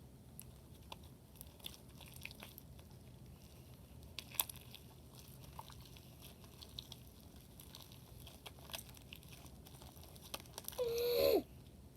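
Sticky slime being squished and pulled between fingers, giving scattered small wet clicks and crackles. Near the end comes a short pitched squeak that falls in pitch.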